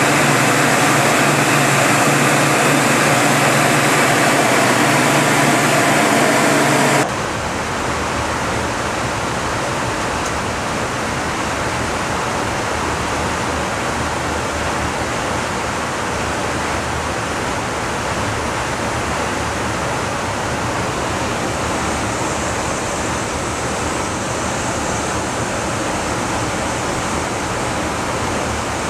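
Steady in-flight aircraft noise, engine and airflow rush heard from inside an aircraft. About seven seconds in it cuts abruptly to a slightly quieter, even rushing hiss.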